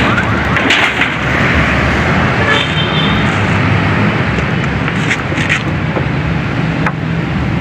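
Road traffic passing close by: a vehicle engine's steady low hum, with tyre noise swelling about a second in and fading by about three seconds. A few sharp knocks stand out now and then.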